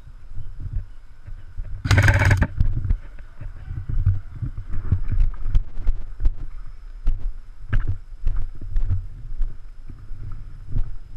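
Footsteps and the bumping and rubbing of a body-worn camera while walking through grass and undergrowth, as a string of low thumps and scattered clicks. About two seconds in there is one loud, half-second crackling burst.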